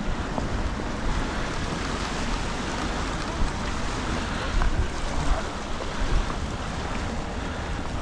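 Wind buffeting the microphone in gusts, over a steady wash of ocean waves.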